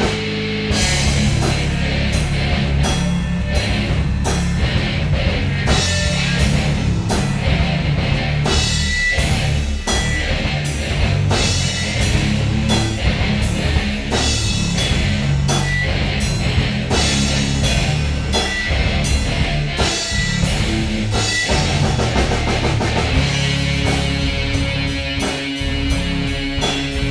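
Rock band jamming, with a drum kit playing busily over sustained low instrument notes. Near the end a chord is held while the drumming thins out.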